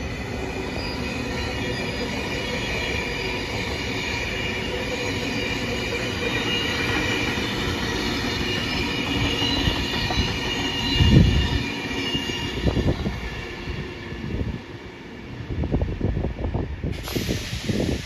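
Sydney Trains double-deck electric train passing, its steel wheels squealing on the curved track with a steady high-pitched squeal over the rumble of the running gear. The squeal fades after about twelve seconds. A loud low thump comes about eleven seconds in, and wind gusts hit the microphone near the end.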